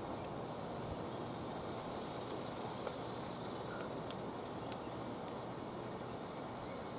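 Steady outdoor background hiss, with a few faint light clicks.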